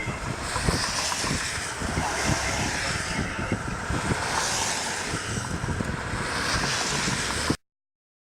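Strong wind buffeting the microphone in gusts, a low rumbling rush with a hiss that swells and fades every couple of seconds. The sound cuts off abruptly near the end.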